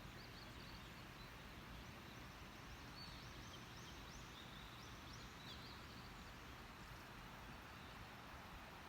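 Faint outdoor ambience with small birds chirping in short, high, repeated calls over a steady background hiss.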